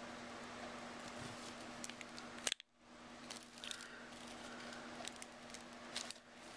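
Faint clicks of a Benchmade 32 Morpho balisong (butterfly knife) being handled: the spring latch is worked and the handles are swung apart to open it. A steady electrical hum runs underneath.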